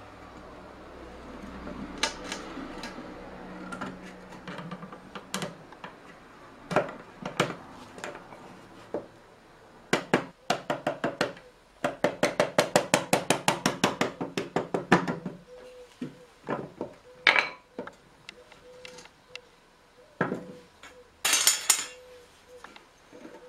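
Hammer blows on a flat driver set against the wooden head of a small cherry barrel, tapping the head down into place. A scraping rub of wood comes first, then scattered single knocks, then a fast run of about twenty light taps, and a sharper, brighter cluster of blows near the end.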